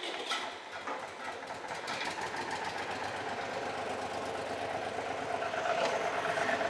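Ford three-cylinder gasoline tractor engine running steadily just after being started, with an even pulsing beat, growing a little louder near the end.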